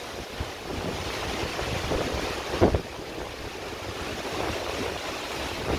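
Hailstorm with strong wind: a steady hiss of rain and hail with gusts buffeting the microphone, and one loud thump about two and a half seconds in.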